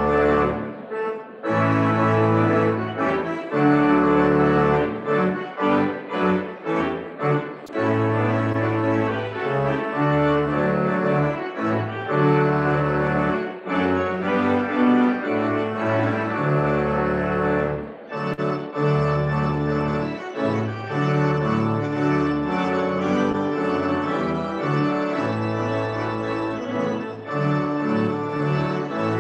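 Pipe organ playing sustained chords over a deep pedal bass, with a brief break about a second in.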